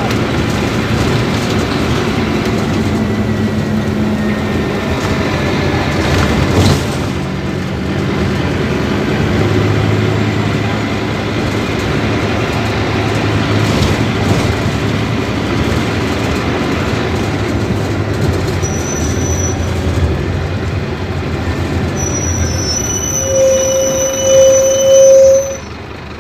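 Scania K250UB city bus under way, its five-cylinder diesel engine droning with the body rattling and clattering. Near the end a short, high squeal rings out over it.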